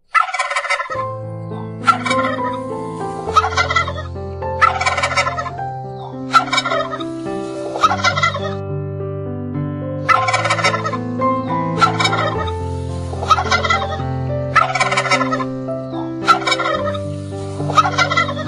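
A game bird giving loud rattling, gobble-like calls, one about every second, over background music with low sustained notes.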